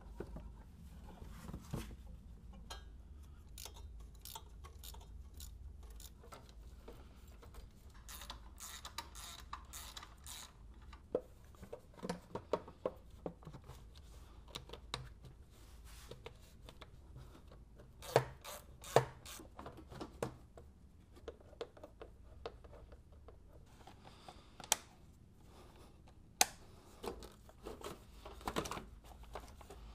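Scattered clicks, knocks and plastic rattles of parts being handled and fitted back into a car's engine bay, over a low steady hum, with a few sharper clicks after the middle and near the end.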